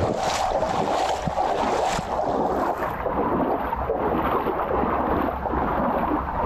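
Steady rushing noise of rain falling onto standing floodwater.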